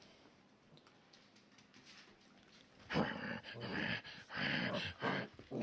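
English Setter puppies play-fighting, with bursts of rough growling from about three seconds in.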